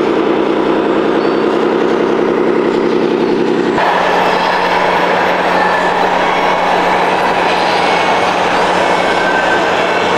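Simulated diesel truck engine sound from the sound units of 1/14 scale RC model trucks, running steadily. About four seconds in the sound changes abruptly to a different vehicle-engine mix.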